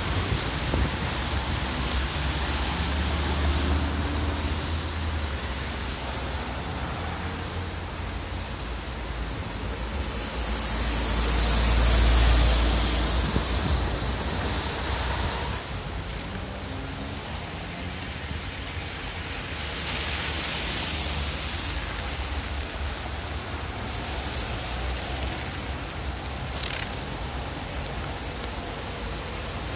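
Traffic on a wet city street: a steady hiss of tyres on wet asphalt with a low rumble underneath. A passing vehicle swells up and fades about twelve seconds in, and a smaller one passes around twenty seconds.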